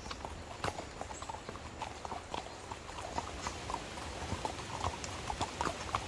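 Horse hooves clopping on a trail, a few irregular knocks a second.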